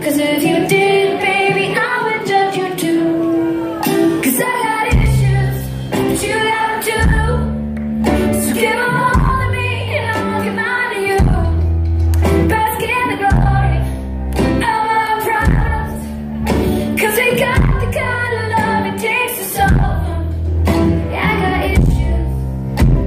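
Live pop song: a woman singing with her small guitar, deep bass notes coming in about five seconds in and pulsing under the voice.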